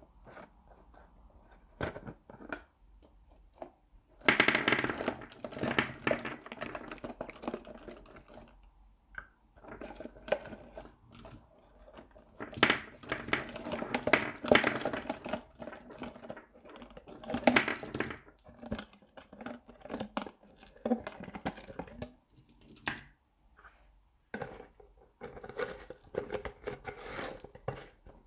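Cellophane-wrapped lollipops crinkling and clattering as they are tipped out of a clear plastic jar onto a wooden tabletop. The sound comes in uneven bursts of rustling with sharp clicks, the loudest starting about four seconds in.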